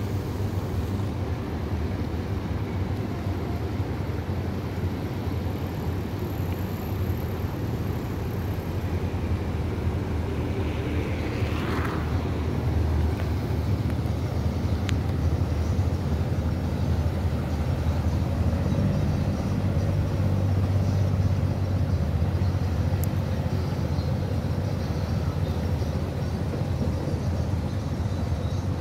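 Steady low rumble of outdoor city background noise, with no clear single source.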